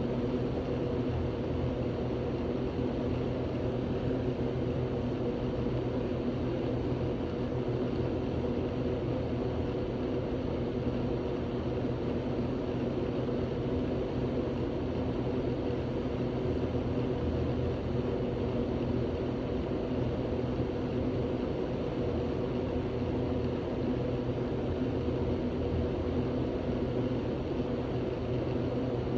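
A steady low mechanical drone with a few fixed low tones, running evenly without change, like an engine or motor.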